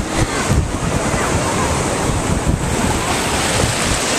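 Small ocean waves washing in and foaming around the legs in shallow surf, with wind buffeting the microphone.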